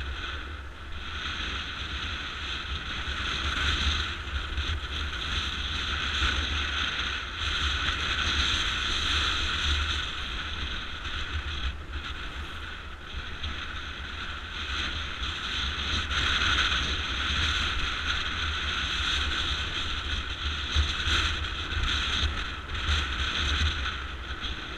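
Wind rumbling on an action camera's microphone on a moving motorcycle, over the bike's running engine and road noise. It grows louder over the first few seconds and then holds, rising and falling a little.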